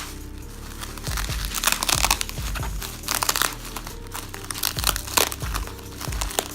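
Packaging crinkling and rustling in irregular bursts as it is handled and opened, over background music with a steady beat.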